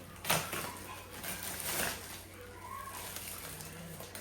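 Purchased items being handled and unpacked: a sharp click just after the start, then a stretch of rustling about a second and a half in.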